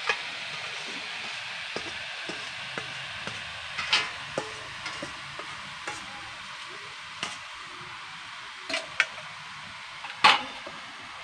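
Chopped greens sizzling in hot oil in a steel wok, with a few sharp metal clinks of a spatula and colander against the pan, the loudest near the end.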